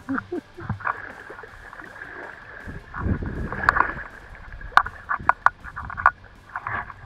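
River water sloshing and splashing close to the microphone around a wading angler, with a handful of sharp splashes and clicks in the second half.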